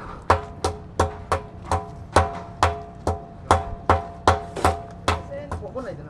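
Repeated hand-tool strikes on metal, about two and a half a second, each with a short metallic ring. The strikes grow weaker near the end.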